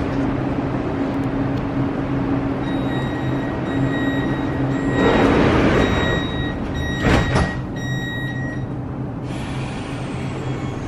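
Siemens Inspiro metro train running: a steady low electric hum with thin high whining tones, a swell of noise about five seconds in and a short sharp knock about seven seconds in. Near the end, high tones slide in pitch.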